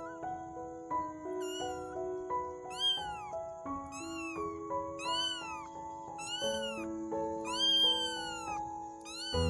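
A kitten meowing over and over, short high meows that rise and fall, about one a second. Background music with a simple melody plays underneath.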